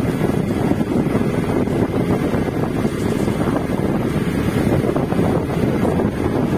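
Wind rumbling on the microphone of a moving vehicle travelling along a road, a steady, loud low buffeting with road and engine noise underneath.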